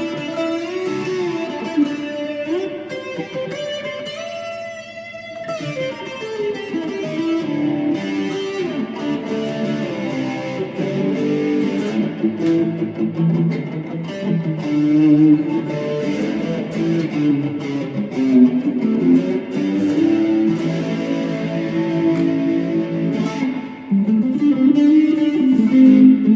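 Strat-style electric guitar played through distortion: a run of single-note lines and chords, with some notes bent up and down in pitch.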